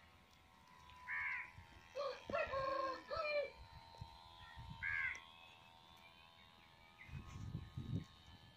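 Birds calling: a short harsh call about a second in and another about five seconds in, with a longer call in several parts between them. A low rumble near the end.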